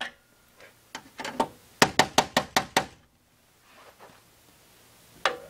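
Sharp metallic tapping on the zinc die-cast serrated lock nuts of the conduit slip connectors as they are driven the last quarter turn: a few taps about a second in, then a quick run of about six, roughly five a second.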